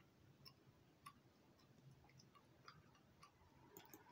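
Near silence with faint small clicks, about two a second.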